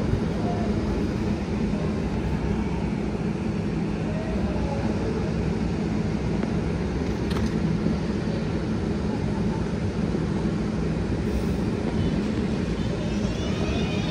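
An R188 subway train stands at the platform with its equipment running in a steady hum. The doors shut with a sharp knock a little over seven seconds in. Near the end the traction motors start a rising whine as the train begins to pull out.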